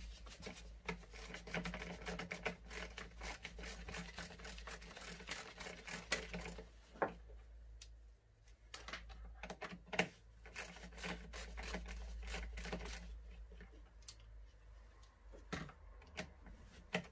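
Irregular clicks and rattles of tools and plastic parts while the cover and air-filter base of a Stihl MS 170 chainsaw are unscrewed, with a few sharper clicks partway through, over a steady low hum.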